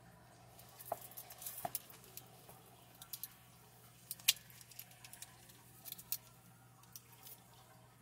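Faint metallic clicks and small handling sounds from a vintage stiletto switchblade clone as its blade and swing guard are folded shut by hand. The sharpest click comes about four seconds in as the blade is pressed closed into the handle.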